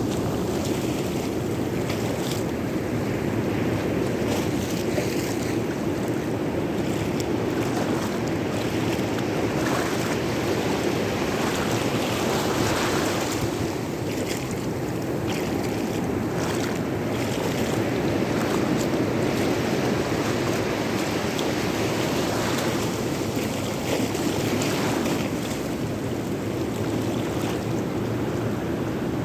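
Rough sea surf at high tide, waves breaking and washing continuously with brief surges, and wind buffeting the microphone.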